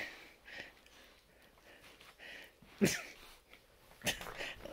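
Husky puppy playing and mouthing at bare feet, making short breathy puffs through its nose and mouth, with one louder short sound falling in pitch about three seconds in and a scuffle near the end as it rolls over.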